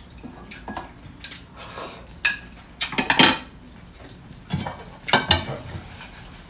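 Spoon and chopsticks clinking and knocking against ceramic bowls and plates, a handful of short, scattered clinks with a brief ring on some.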